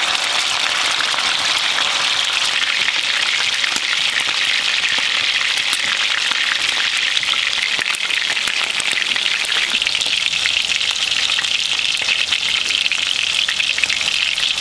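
Beef steak searing in hot olive oil in a cast-iron skillet: a steady, loud sizzle full of fine crackles and pops as the oil spatters around the meat.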